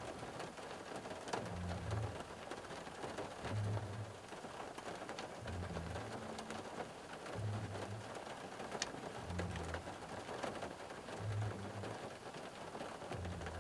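Rain falling on a car's roof and windows, heard from inside the cabin: a steady hiss with many small drop ticks. A faint low pulse repeats about every two seconds.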